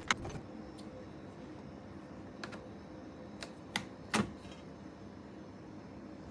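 A few scattered sharp clicks and knocks, the loudest pair about four seconds in, over a faint steady hum.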